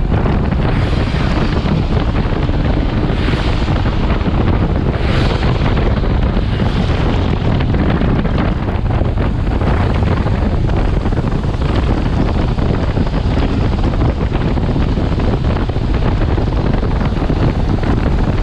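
Heavy wind noise buffeting the camera microphone on a motorcycle at highway speed, with the bike's engine and tyre noise running underneath. A few stronger gusts come in the first several seconds.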